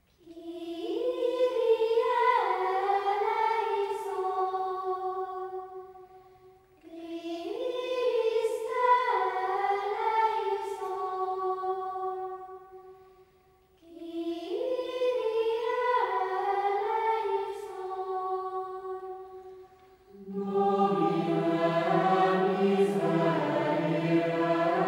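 Choral music: high voices sing the same short phrase three times, each rising then falling away, with a brief pause between. About twenty seconds in, lower voices join and the singing becomes fuller and steady.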